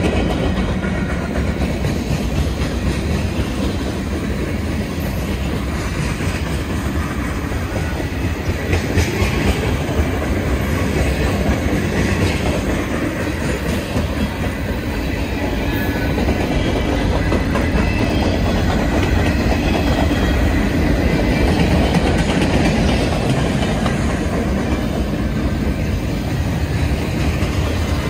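Freight cars of a long Norfolk Southern mixed manifest train rolling past at close range: a loud, steady rumble of steel wheels on the rails.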